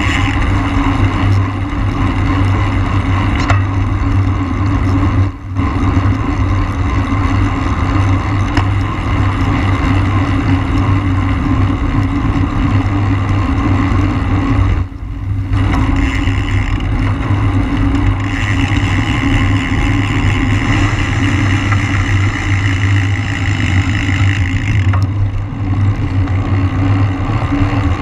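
Steady wind rush and road noise on the microphone of a road bike moving at race speed. The rush dips briefly twice.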